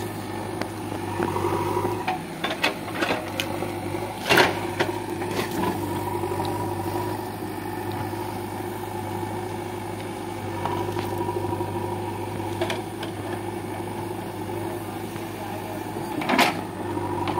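JCB backhoe loader's diesel engine running steadily as the backhoe digs out tree roots, with a few sharp knocks, the loudest about four seconds in and another near the end.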